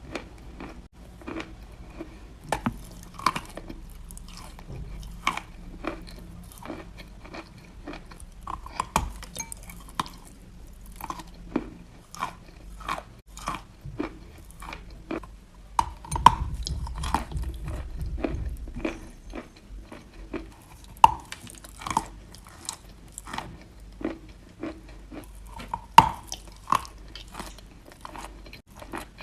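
Wet chalk being chewed close to the microphone, steady crunching with many small sharp cracks, several a second, and a few louder crunches.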